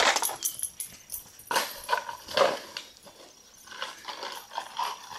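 Rocks rattling inside a plastic bottle dog toy as a puppy knocks it about, in several short, uneven clattering bursts. The loudest bursts come about one and a half to two and a half seconds in, and smaller ones follow near the end.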